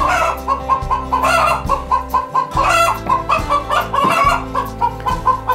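Hens clucking in quick runs of short notes, over background music with a steady low bass line.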